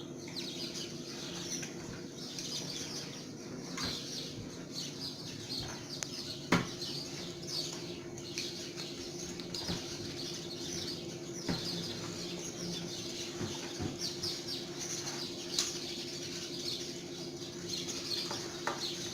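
Faint, busy chirping of small birds over a steady low hum, with a few sharp clicks; the loudest click is about six and a half seconds in.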